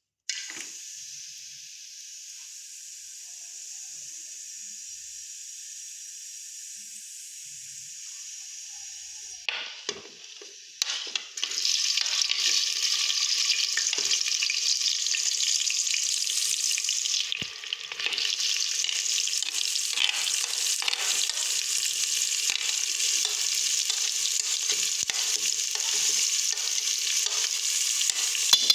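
Food frying in hot oil in a pan, a steady quieter sizzle at first. After a few knocks around ten seconds in, the sizzle turns much louder and denser, with crackling and the scraping of stirring.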